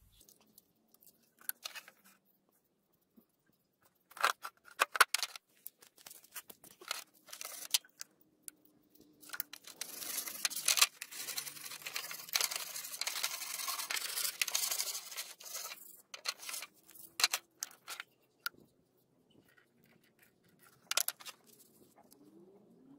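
A small brush scrubbing rust off old pliers in a plastic tray. About ten seconds in there is a run of hard, rapid scratchy strokes lasting some six seconds, with scattered ticks and short scrapes of the pliers and brush against the tray before and after it.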